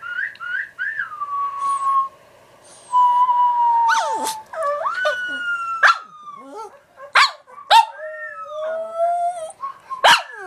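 Pekingese dog howling and whining in long wavering cries, broken by several sharp yips. It is crying in answer to the sound of a puppy whistle.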